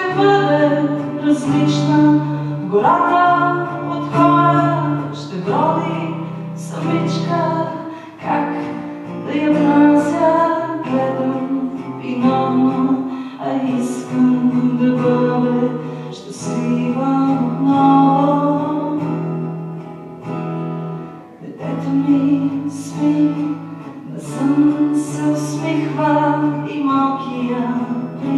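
A woman singing a song, accompanying herself on an acoustic guitar with steady strumming.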